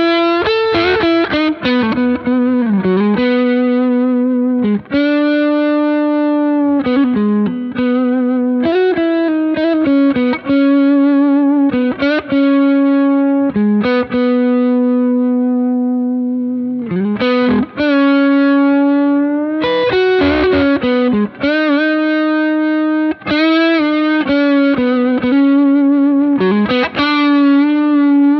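Electric guitar played through a Curve clean boost pedal into a Hamstead valve amplifier, the boost pushing the amp into a harmonically rich overdrive. Single-note lead lines with string bends, wavering vibrato and long sustaining notes.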